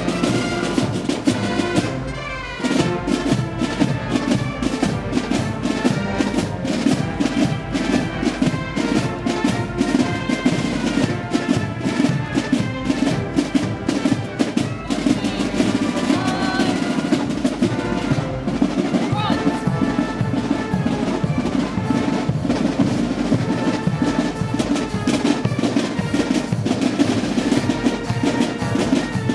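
Marching band of brass and drums playing a march: snare drum strokes and rolls under sustained brass chords.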